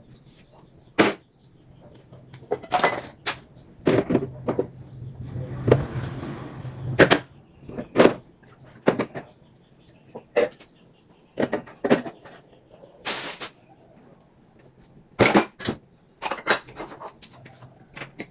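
Irregular knocks, clicks and clatter of household items being handled, opened and set down while cleaning, with a brief rushing noise in the middle.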